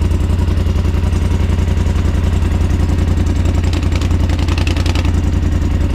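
Polaris Sportsman XP 1000 ATV's twin-cylinder engine idling steadily through an aftermarket HMF Swamp Series exhaust, with a deep, even exhaust pulse.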